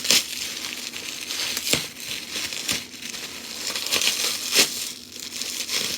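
Bubble wrap being handled and pulled off a boxed fire alarm, crinkling steadily, with several sharp crackles about a second apart.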